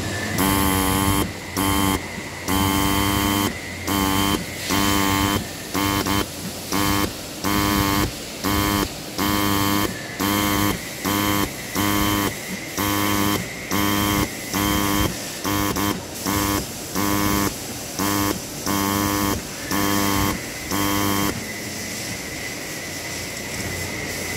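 Marcopolo MP 100i dot peen marking machine hammering characters into a steel shaft: its marking pin strikes in short buzzing bursts with brief pauses between them. The bursts stop about 21 seconds in, leaving a steady hiss.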